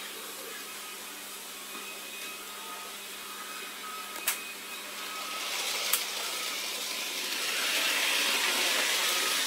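Steady hiss and running noise around a model railway layout, growing louder from about halfway through, with two sharp clicks.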